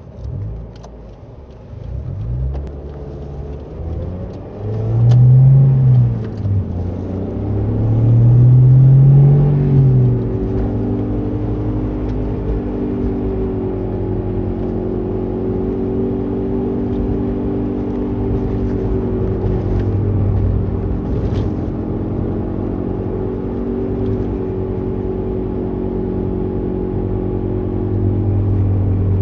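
Toyota Vitz (NCP13) under way: engine revs rise and fall twice in the first ten seconds as it accelerates, then a loud, steady droning hum at road speed, the 'gooo' roar of a worn wheel hub bearing.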